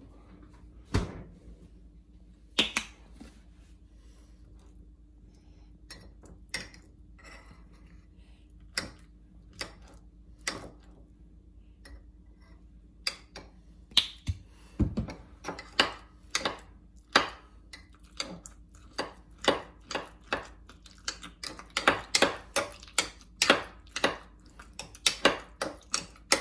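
Kitchen utensils clicking and tapping against dishes, with scattered single taps at first and a quick run of taps, several a second, near the end. A faint steady hum lies underneath.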